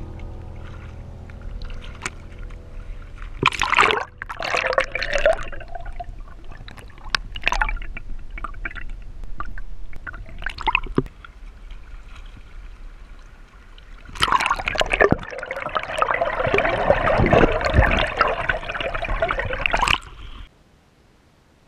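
Shallow river water splashing and gurgling around a camera held at the surface and dipped under, in several short bursts and then a long, dense stretch of splashing that cuts off suddenly near the end.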